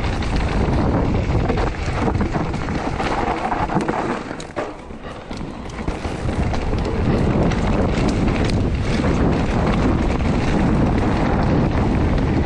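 Electric mountain bike ridden over rough ground, with wind buffeting the microphone and a loose clattering rattle, the rattle that the rider puts down to the Bosch Performance Line CX Gen4 drive unit. The noise drops briefly about four and a half seconds in.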